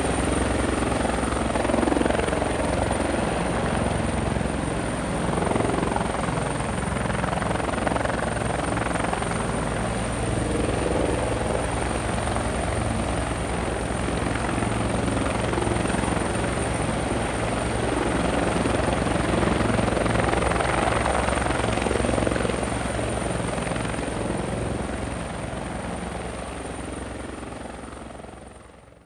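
Rotors and motors of a small remote-controlled camera helicopter buzzing steadily in flight, with a constant thin high whine above; the sound fades out near the end.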